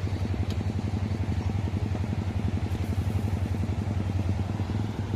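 A small engine running steadily at idle, a fast even putter over a low hum.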